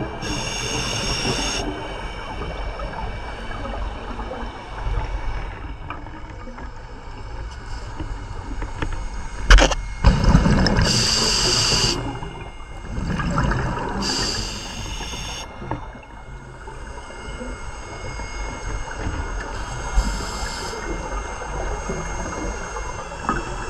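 Scuba diver breathing through a regulator underwater: short hissing inhales that come back every few seconds, and bubbling, rumbling exhales. A sharp knock comes about ten seconds in.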